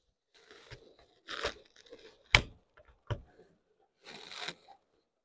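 Bolt-action .308 rifle being handled after a misfire: soft scraping and rustling with a sharp metallic click about two seconds in and a lighter one a second later, the sounds of the rifle's action being worked to try the misfired cartridge again.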